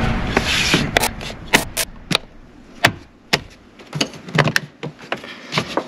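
Plastic interior trim at a Jeep Wrangler JL's door sill being pushed and snapped into place by hand: a rubbing scrape in the first second, then a string of sharp clicks and taps.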